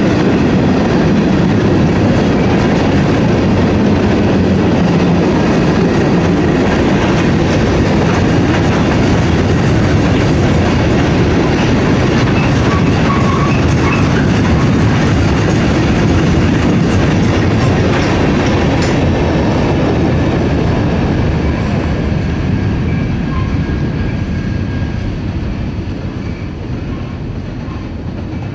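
Covered hopper cars of a freight train rolling past: steel wheels running on the rails. The sound fades over the last several seconds as the end of the train passes and moves away.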